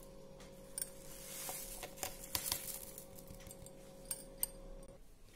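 Scattered light clicks and clinks of whole spice seeds and a ceramic plate against a steel mixer-grinder jar as the seeds are tipped in. A faint steady hum runs underneath and stops shortly before the end.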